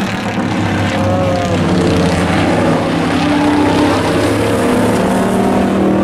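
Several pickup-truck race engines running hard on the oval, their overlapping engine notes steady and loud, each drifting up and down in pitch as the trucks go round.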